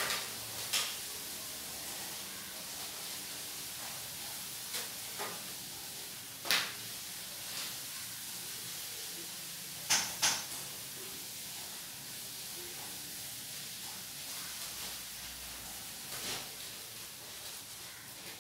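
Steady background hiss with a handful of small, sharp clicks and taps scattered through it, the loudest a pair close together about ten seconds in.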